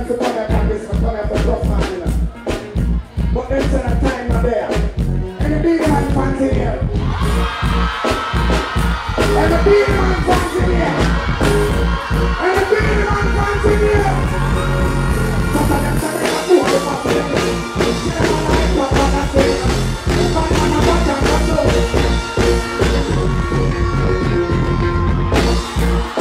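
Live dancehall music played loud through a stage sound system, a steady heavy bass under a vocalist singing into a microphone. The backing grows fuller about seven seconds in.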